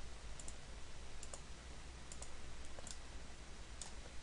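Computer mouse clicking: several light, sharp clicks, mostly in quick pairs, about once a second, over a steady low hum.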